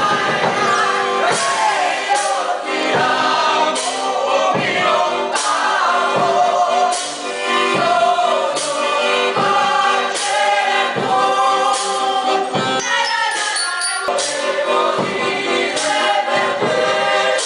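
A group of voices singing together in chorus, with brass and a drum keeping a steady beat, a stroke about every second.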